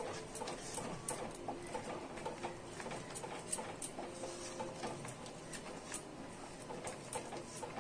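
Wooden spatula stirring a thick yogurt-and-spice paste in a kadai over a full flame: irregular light taps and scrapes of the spatula against the pan.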